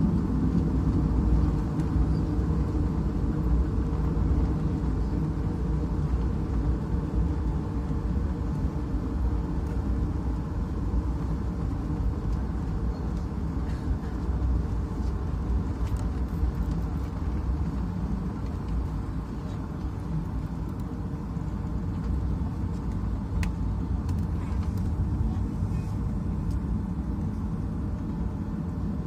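Steady low cabin rumble of a Boeing 757-232 taxiing after landing, its engines at idle and its wheels rolling on the taxiway, with a few faint ticks.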